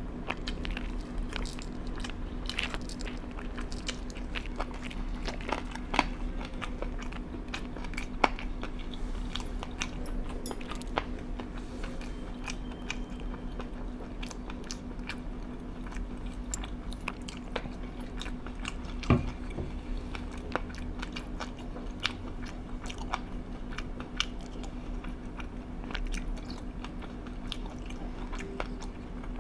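A person chewing and biting food, with scattered crisp crunches and sharp clicks, over a steady low hum.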